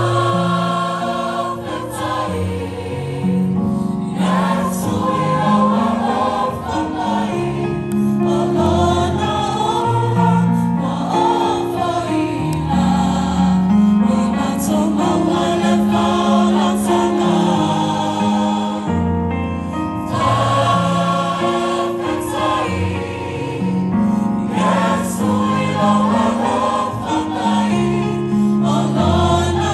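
Choir singing a Christmas carol in several voices, with held chords and a moving bass line under the melody.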